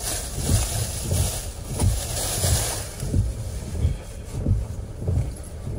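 A plastic bag rustling and crinkling as it is searched through for about the first three seconds. Under it runs a low thump that repeats about every two-thirds of a second.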